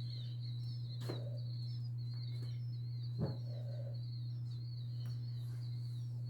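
Continuous high, rapidly wavering chirping from several unseen creatures, which the listener takes for birds, over a steady low hum. Two faint knocks come about one and three seconds in.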